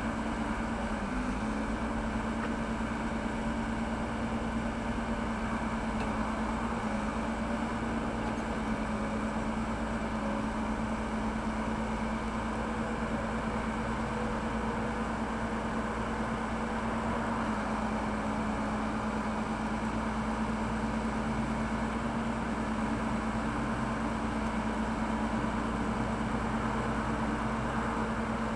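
Backhoe loader's diesel engine running steadily, a constant hum that holds one pitch, with no revving or bucket knocks.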